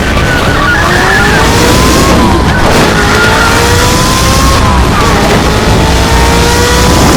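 Racing car engine accelerating hard through the gears: the pitch climbs, drops at a gear change about two and a half seconds in and again near five seconds, then climbs once more, over a steady low rumble.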